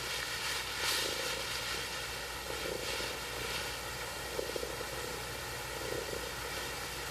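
Steady hiss with a low hum underneath, even throughout, with no distinct sound standing out.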